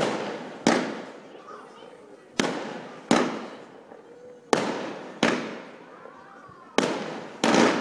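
Aerial fireworks bursting in quick succession: eight sharp bangs coming in pairs about two-thirds of a second apart, each bang fading away over about a second.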